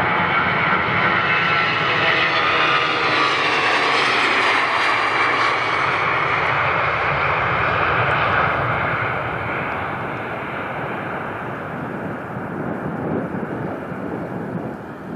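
Wide-body jet airliner passing close with its engines running. The noise is loudest in the first half, with a wavering high whine around four seconds in, then fades over the last few seconds.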